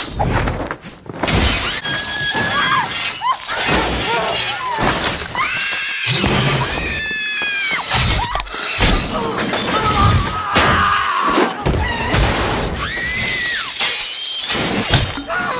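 Film action sound mix: repeated crashes and glass shattering, with several long screams and music underneath.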